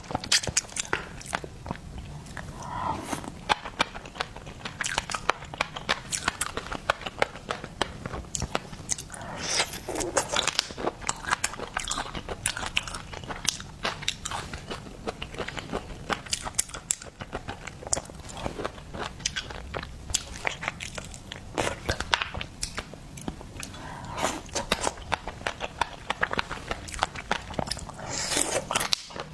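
A person biting and chewing seafood close to the microphone, with many irregular crunching bites throughout.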